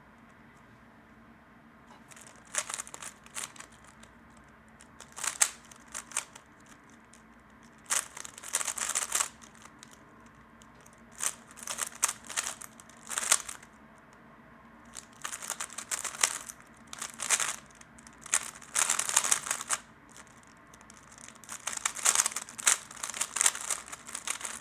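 3x3 speedcube being turned fast, with rapid plastic clacking in bursts separated by short pauses. The turning starts about two seconds in, after a quiet moment.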